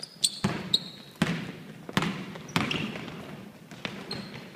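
A basketball bouncing on the court floor, dribbled in several irregularly spaced thuds, with a couple of short high squeaks of sneakers on the court.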